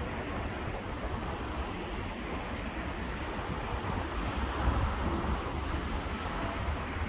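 City street ambience: a steady rumble of traffic and general outdoor street noise.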